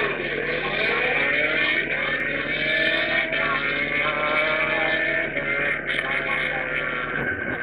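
Drag-racing engines running at the staging lanes: a steady engine drone, with engine notes that climb slowly in pitch over the first few seconds.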